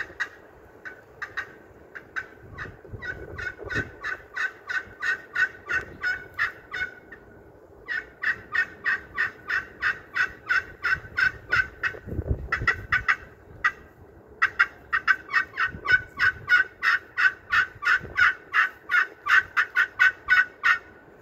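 Curly maple pot-style turkey friction call with a green slate surface, played with a wooden striker. It gives long runs of short turkey-like notes, about three to four a second, in four series with short pauses between them.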